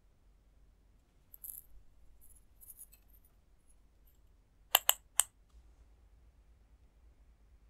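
Faint, high crackling handling noise, then three quick, sharp clicks of small hard objects near the middle.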